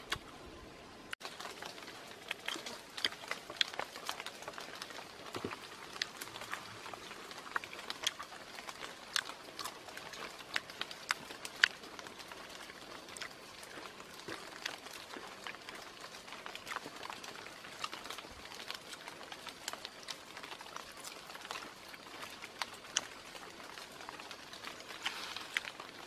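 A person eating cooked grubs from a leaf: chewing and smacking close to the microphone, with irregular sharp clicks and crackles a few times a second.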